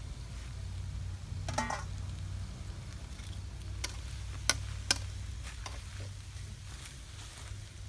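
A metal spoon clinking against a steel wok and bowl. There are a few light clicks and two sharp clinks about half a second apart, the loudest sounds, over a steady low rumble. A brief chicken call comes about one and a half seconds in.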